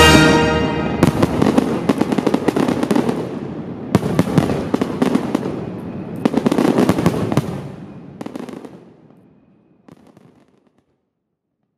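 Aerial fireworks going off in several volleys of rapid bangs and crackles, dying away after about nine seconds.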